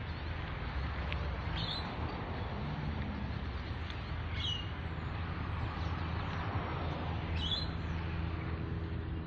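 A bird gives a short, high, downward-sweeping call three times, about three seconds apart, over a steady rushing noise with a low rumble.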